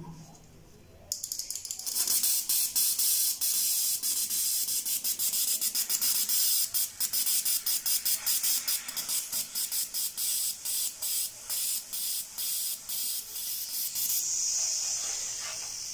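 Aerosol carb cleaner hissing as it is forced through a fuel injector that is pulsed open and shut with battery wires, flushing the injector clean. The spray comes in quick bursts broken by short gaps, a couple of times a second, starting about a second in, and near the end it settles into a steadier, quieter hiss.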